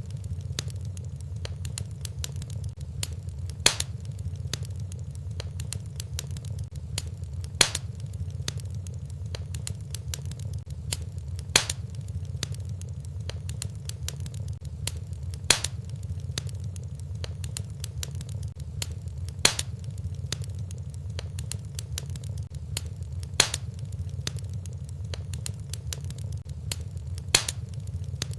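Fireplace fire crackling over a steady low rumble, with fine crackles throughout and a sharp, louder pop about every four seconds, evenly spaced.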